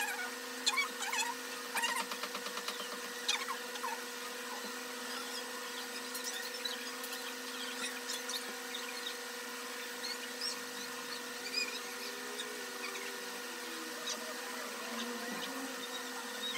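A steady hum of several pitches, like a running machine or appliance, with scattered faint clicks, a quick run of ticks about two seconds in, and a few short chirps.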